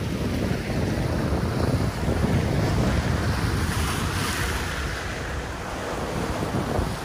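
Sea surf washing and breaking against the rocks of a jetty, with wind buffeting the microphone; the wash swells louder about halfway through.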